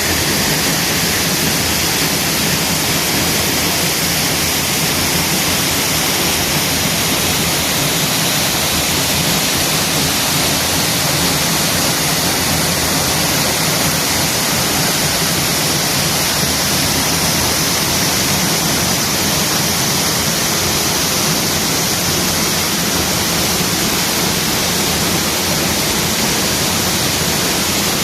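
A waterfall in heavy flow after rain: loud, steady rushing and crashing water with no break.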